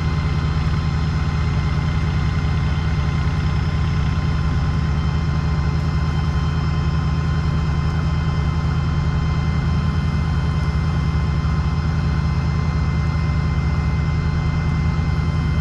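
Heavy engine running steadily at a constant speed, a deep even hum with no rise or fall in pitch.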